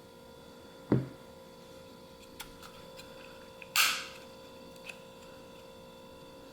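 Handling noises from working a pistol's fire control unit out of its grip frame with a punch: a dull knock about a second in, a sharper scraping clack near four seconds, and a few small ticks, over a faint steady hum.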